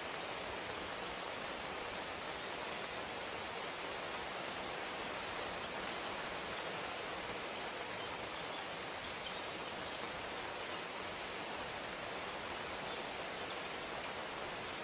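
Steady rain, with a small bird giving two short runs of quick, high repeated chirps, one about three seconds in and another about six seconds in.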